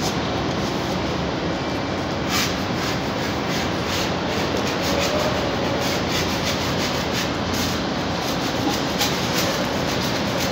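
Steady, loud rumbling construction-site background noise with scattered light clicks and scrapes.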